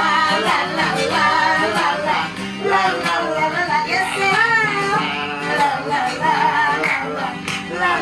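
Acoustic guitar strummed in a steady rhythm while a woman sings the melody with a wavering pitch, joined by a man's voice.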